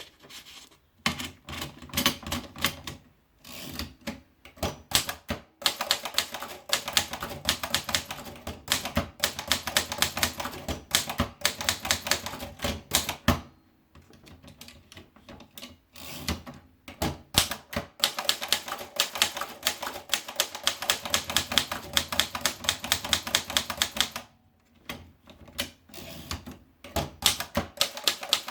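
Corona Model 3 portable typewriter being typed on: fast runs of sharp key strikes, broken by a few short pauses, the longest about halfway through.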